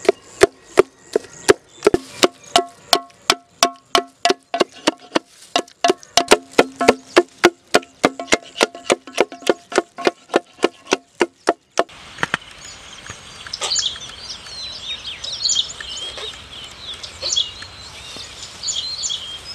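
A wooden masher pounding fried bananas in an aluminium pot, about four knocks a second, each leaving the pot ringing briefly. About twelve seconds in it stops suddenly, giving way to outdoor ambience with birds chirping.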